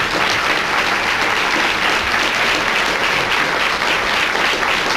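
Audience applauding steadily, a dense, even patter of many hands clapping.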